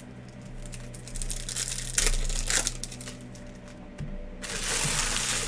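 Foil trading-card pack wrappers crinkling and cards being handled, in scattered rustles and clicks, then a denser, steady crinkling rush starting about four and a half seconds in.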